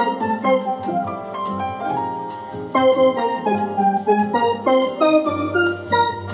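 Roland Aerophone AE-10G digital wind instrument playing a quick melody of short, struck-sounding notes on a steel-drum-like patch. The patch is three synth basses layered in different octaves plus a lead guitar voice, with chorus, reverb and a slight delay.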